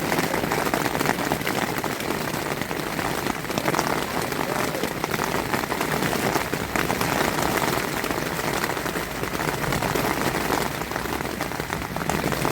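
Heavy thunderstorm rain pattering steadily on a small camping tent, a dense, even hiss of drops.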